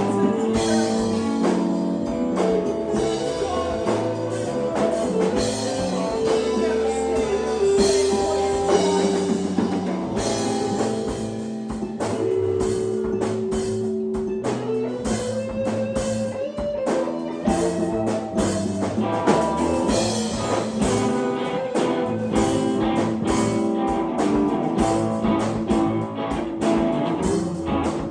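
Live band jamming: electric guitar playing sustained lead lines over bass and a drum kit keeping a steady beat, in a blues-rock style.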